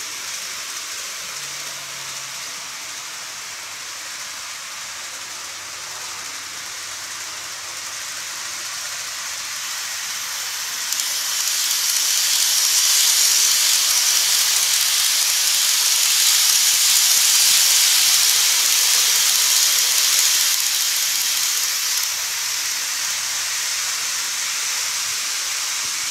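Model train of a Tokyu 2000 series running on plastic track: a steady hissing rumble of wheels and motor that grows louder a little under halfway through as the train passes close, then drops back a few seconds before the end.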